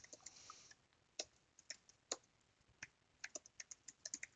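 Faint computer keyboard keystrokes, irregular single taps with a quicker run of keys near the end: someone typing a search query.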